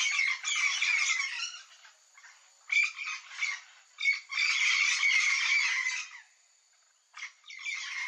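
A flock of yellow-faced parrots squawking together in a dense, harsh chorus. It breaks off twice: first to three single squawks, then to near silence with one squawk, before the chorus picks up again.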